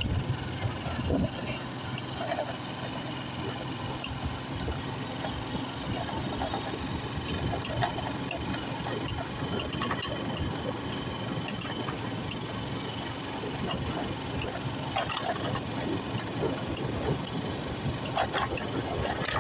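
Vehicle engine running steadily while driving over a dirt road, with scattered rattles and clicks from the ride.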